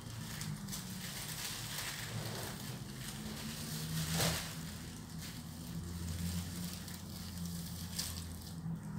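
Plastic bag crinkling and rustling under cats as they wrestle and shift on it, with a louder rustle about four seconds in.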